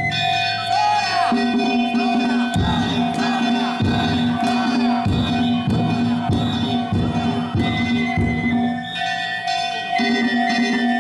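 Danjiri float music: a taiko drum struck about once a second with clanging hand gongs, over the steady ringing of a Japanese railway level-crossing warning bell.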